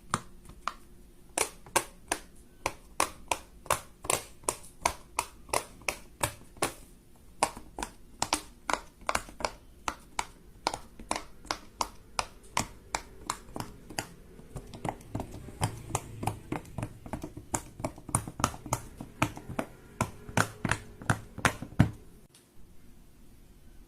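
A hand-held fidget toy being pressed over and over, making a quick run of sharp clicks and pops about three a second, which stop abruptly near the end.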